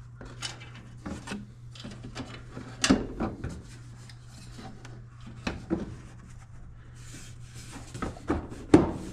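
Hands working on a dryer's parts and wiring: rubbing and scraping with scattered clicks and knocks, the loudest knocks about three seconds in and near the end. A steady low hum runs underneath.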